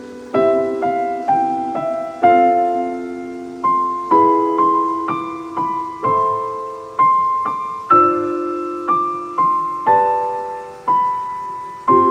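Background music: a slow, gentle piano piece, with soft chords and a simple melody of single notes that ring and fade.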